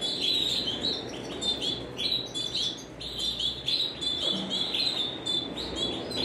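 Several Timbrado Español canaries chirping: a dense run of short, high chirps, many overlapping, with no pause.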